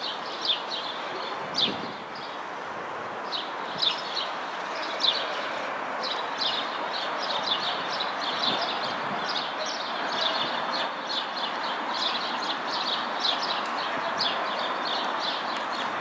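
Small city songbirds chirping: many short, high chirps, sparse at first and coming several a second from about six seconds in, over a steady background hiss.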